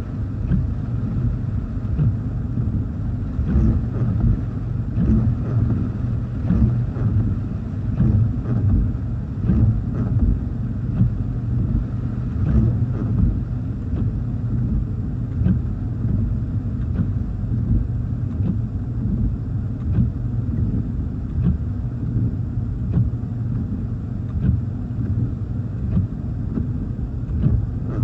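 Low, steady rumble inside a stationary car with the engine running, while gusty wind buffets it in a rainstorm and the windshield wipers sweep with faint knocks.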